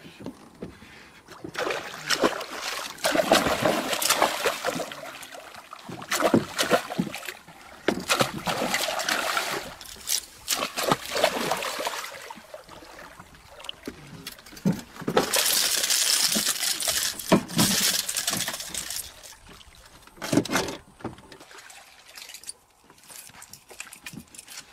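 A hooked giant snakehead thrashing at the surface, splashing and sloshing the water in repeated bursts, loudest about two thirds of the way through.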